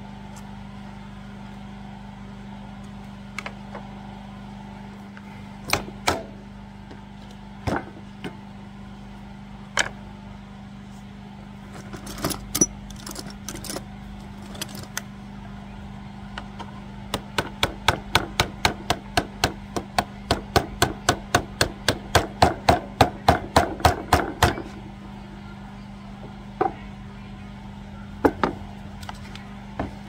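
Hand tools clicking and tapping on the plastic housing of an electric chainsaw sharpener as its screws are worked loose: scattered single clicks, then a fast even run of about four clicks a second for several seconds, then a few more. A steady engine hum runs underneath.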